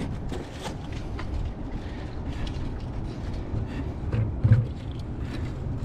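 A freshly caught herring flapping in a plastic bucket: irregular light taps and rattles, with a dull thump about four and a half seconds in, over a low steady rumble.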